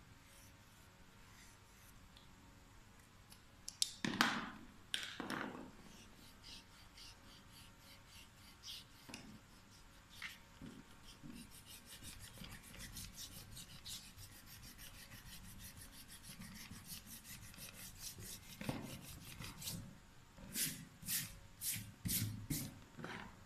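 Hand rubbing back and forth over a sheet of paper on a clipboard: a long run of quick scratchy strokes, several a second, then several louder strokes near the end.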